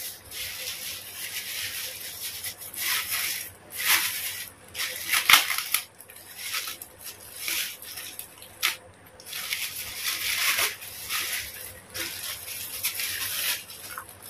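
Thin plastic bag wrapping crinkling and rustling in irregular bursts as it is pulled and unwound from a machete, along with tape being pulled off. One sharp click about five seconds in.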